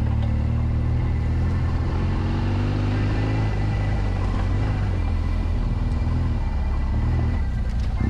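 BMW R1200GS adventure motorcycle with its boxer-twin engine, running steadily at low trail speed.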